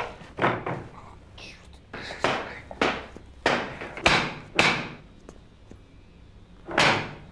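Heavy blows struck repeatedly on something solid: about nine bangs in uneven runs roughly half a second apart, each ringing briefly, with a pause of about two seconds before the last.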